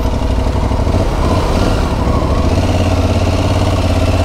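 Aprilia Tuareg 660 motorcycle's parallel-twin engine running at low, steady revs.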